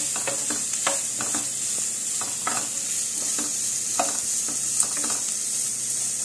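Chopped onions sizzling in hot ghee in a non-stick kadai, with a steady high sizzle, while a wooden spatula stirs them, scraping and tapping the pan at irregular moments. The onions are being lightly sautéed.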